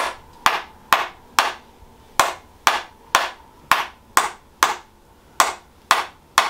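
Tok Sen hammer massage: a mallet taps a wedge held against the patient's pelvic area in a steady series of sharp knocks, about two a second, with two short pauses. The tapping is meant to loosen the sacroiliac joint.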